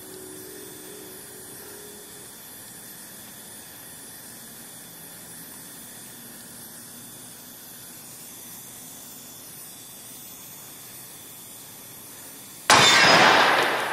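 Steady faint hiss while a hydraulic torsion-test machine twists a carbon fiber driveshaft toward 4,000 foot-pounds, then near the end a sudden loud burst of noise that fades over about a second: the torque machine breaking under the load while the driveshaft holds.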